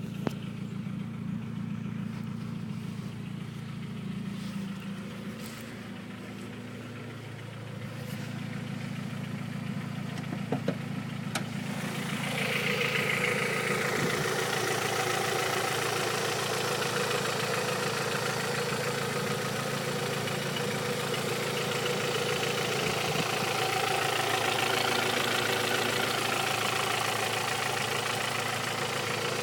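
Engine idling with a knock, the sign of an internal fault. About twelve seconds in it gets louder and fuller.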